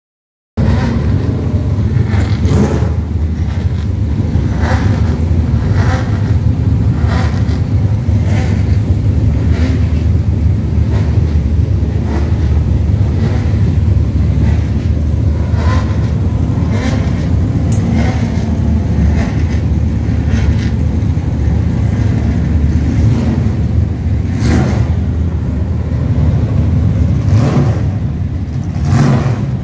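Historic Formula One car engines running loudly: a deep, steady rumble with short surges over and over, starting abruptly about half a second in.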